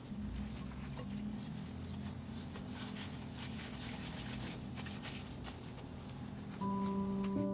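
Soft squishing and crinkling of disposable plastic gloves working raw ground-beef meatball mix and setting meatballs on a glass plate: many small, faint handling clicks over a low steady hum. An electric piano chord comes in near the end.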